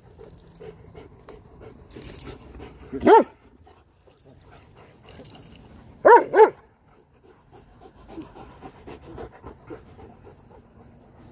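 Dogs playing: a single loud bark about three seconds in, then two quick barks about six seconds in, with quieter panting in between and after.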